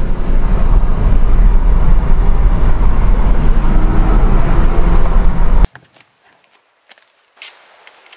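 Loud, steady engine and tyre noise inside a Porsche Cayman's cabin while driving on a wet road. It cuts off suddenly a little past halfway, leaving a quiet stretch with a faint click near the end.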